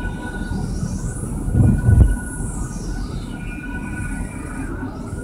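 Road and engine noise heard inside a moving car's cabin, a steady low rumble, with two low thumps about a second and a half in and a faint high whine that rises and then falls.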